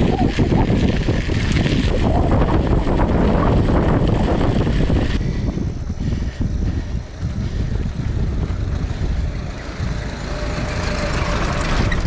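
Wind buffeting the action-camera microphone and tyres rolling over a dirt road as a 29-inch mountain bike is ridden fast, a dense, rumbling rush that eases slightly about five seconds in.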